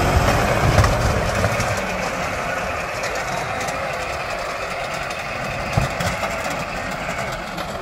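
Muck shredder machine running with a steady mechanical noise, a little louder in the first two seconds, with one knock about six seconds in.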